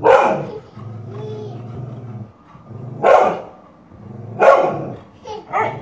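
A dog barking in loud single barks, the last two coming quickly one after the other, with a low rumble between the first two barks. It is barking protectively at a hand raised as if to hit a child.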